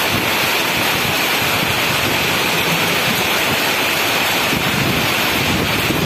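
Heavy rain and strong wind in a storm, the wind buffeting the microphone: a steady, loud hiss over a fluttering low rumble.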